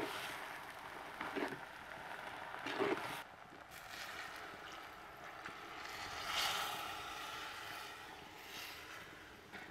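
Red lentils sizzling in a hot clay pot while a spoon stirs and scrapes them, with a couple of knocks of the spoon against the pot. After about three seconds coconut milk is poured into the pot, a smoother pouring hiss that swells a little past halfway.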